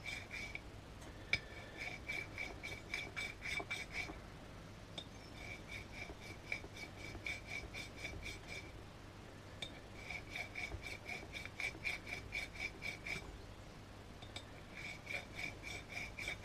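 Hand filing with a Swiss-pattern safe-edge file on a boss of a telescope secondary-mirror holder: quick short strokes, several a second, each giving a bright ringing clink, in runs of two to three seconds with brief pauses between. It is the sound of a flat being filed onto a round boss.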